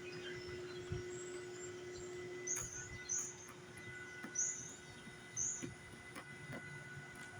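A bird chirping four times in short, very high-pitched notes, over a faint steady hum.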